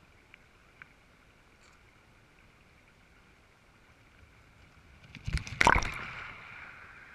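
Shallow stony river running steadily, then a mountain bike splashes through it about five seconds in, right over the camera. Water sprays and crashes loudly, then the splashing dies away.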